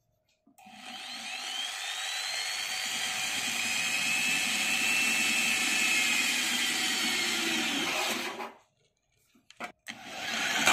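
Black + Decker 550 W corded hammer drill boring through the thin metal lid of a paint tin: the motor whines and the bit grinds steadily for about eight seconds, then stops. After a few clicks the drill starts again near the end, louder.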